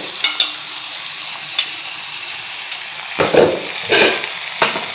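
Stir-fried vegetables and boiled noodles sizzling steadily in a hot wok over a medium-high gas flame. A few knocks and scrapes of the wok and utensil come as the noodles are stirred, loudest in the second half.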